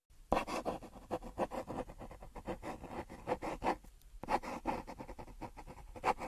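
Quick, irregular scratching and clicking, several short strokes a second, with a brief pause about four seconds in.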